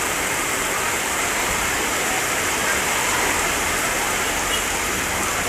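Steady heavy rain falling, an even rushing hiss with no change throughout.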